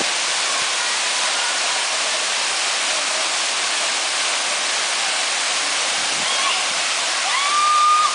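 Waterfall rushing steadily. Near the end a person's voice rises into one long, high held call over the water.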